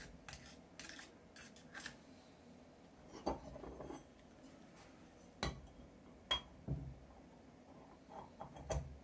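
Scattered light metal clicks and knocks as the gearbox cover of a Lucas 16W wiper motor is handled and seated over its greased gear train, with a few sharper taps from about halfway on.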